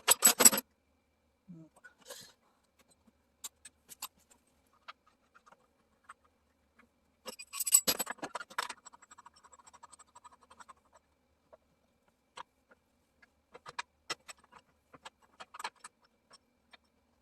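Metal tools and parts being handled while working on a small push-mower engine's pulley: a loud clatter at the start and another about eight seconds in. After the second clatter comes a short run of quick, even ticks, and scattered clinks and knocks fill the rest.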